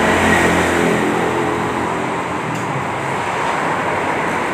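Steady mechanical running noise, with a low hum in the first second or so.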